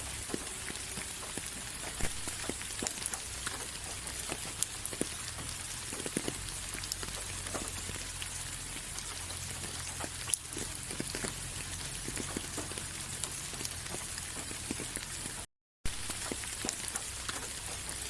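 Steady rain with many individual drops tapping sharply close by over a hiss of rainfall. About fifteen and a half seconds in, the sound cuts out to silence for a split second, then resumes.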